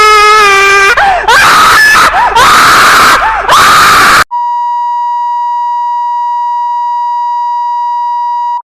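Loud, heavily distorted screaming with a wavering pitch, cut off abruptly about four seconds in. It is followed by a steady single beep tone near 1 kHz, held for about four seconds and then cut off: an alert-style tone.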